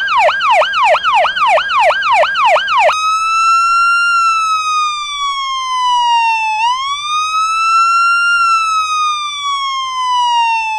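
Electronic police siren in fast yelp, about three sweeps a second, switching about three seconds in to a slow wail that rises and falls twice.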